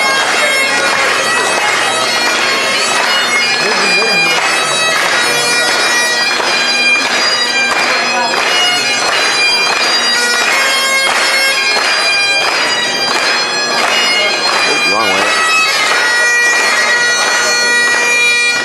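Bagpipes playing a tune for the piping in of the haggis: steady drones sound under the chanter's melody, and the playing stops abruptly at the end.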